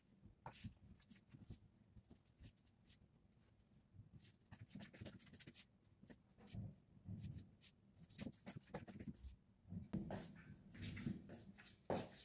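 Faint rustling and soft bumps of bedding as a duvet and pillows are handled and smoothed on a bed, in scattered bursts that grow busier in the second half.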